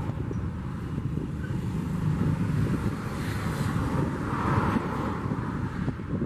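Freight hopper wagons rolling slowly along the track during shunting, a steady low rumble and clatter of wheels on rails, with wind noise on the microphone.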